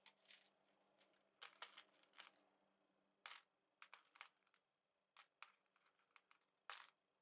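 Faint light clinks and clicks of steel paper clips and thumbtacks rattling against each other and the plastic tray as a drill bit is poked among them to test it for leftover magnetism. About a dozen short taps come at uneven intervals, the loudest a little after a second in, around three seconds in, and near the end.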